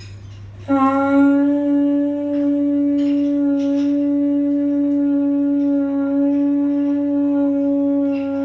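Māori taonga pūoro wind instrument blown in one long held note, starting about a second in.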